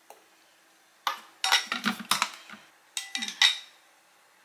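Kitchenware clinking and clattering, utensils knocking against glass and dishes, in two busy bursts about a second in and again near three seconds.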